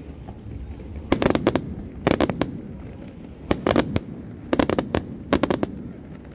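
Fireworks display: five quick volleys of sharp crackling bangs, each a rapid cluster of reports, about a second apart over a steady low background noise.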